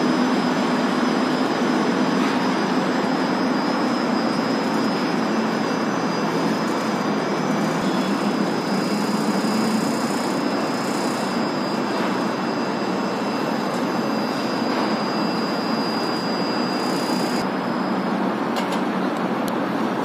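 Concrete mixer truck and hydraulic excavator running together at a concrete pour, giving a steady, even machinery rumble. A thin high whine sits over it and stops near the end.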